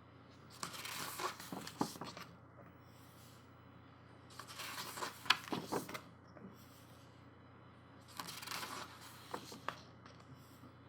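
Pages of a glossy photobook being turned by hand, three times, each a brief papery swish and rustle.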